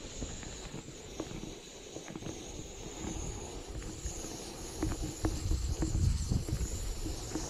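Steady hiss of a camp stove burner running under a can of boiling seawater, with a few faint ticks. Wind rumbles on the microphone, getting louder about halfway through.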